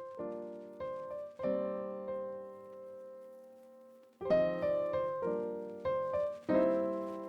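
Background music: piano or electric piano chords, each struck and left to ring and fade.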